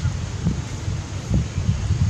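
Wind buffeting the microphone outdoors: a low, gusting rumble that swells and drops several times.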